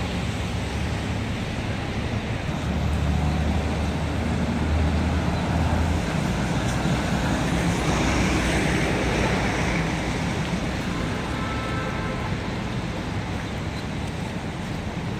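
City street traffic: a steady wash of passing cars and engines, with a low engine hum a few seconds in and a vehicle going by louder about midway.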